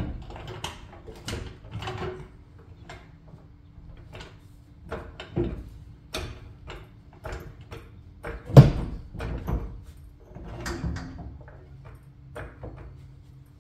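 Trolley jack being worked under a heavy steel Kwikee RV entry-step slide as it is raised and eased into the chassis: irregular clicks, scrapes and metal knocks, the loudest a sharp clank about eight and a half seconds in.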